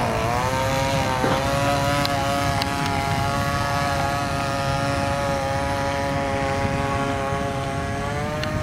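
A model airboat's O.S. Max 15LA 2.5 cc two-stroke glow engine running at speed, driving its propeller. Its pitch dips briefly at the start, climbs back up within the first second, then holds steady.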